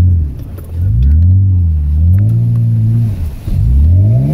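Toyota Tacoma's engine revving hard in about three surges, its pitch climbing, holding and dropping back each time, as the truck works under load to climb a steep dirt trail.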